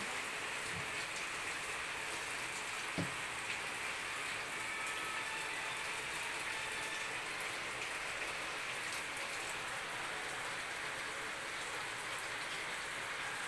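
Steady rain falling, an even hiss with scattered drops, with a single soft knock about three seconds in.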